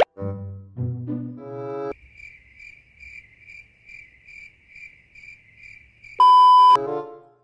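Playful brass-like background music stops and gives way to a cricket-chirping comedy sound effect, pulsing steadily about twice a second, which is cut off near the end by a loud beep lasting about half a second.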